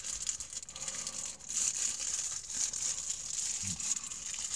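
Plastic packaging crinkling and rustling as it is handled: a fine, continuous crackle.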